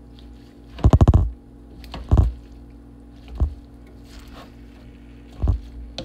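Wooden spoon stirring and turning spinach and chopped vegetables in a large metal pan: short scraping, squishing strokes in about five bursts, the loudest about a second in.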